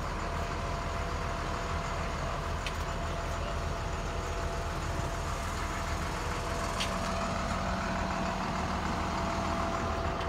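Fuel tanker truck's engine idling steadily, with a steady whine over the low hum. Two short clicks come in partway through.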